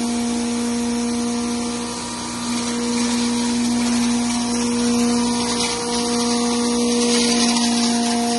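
Electric-motor-driven masala grinder (pulveriser with cyclone collector) running steadily: a loud, even hum at one pitch with higher whining tones over a rushing whir.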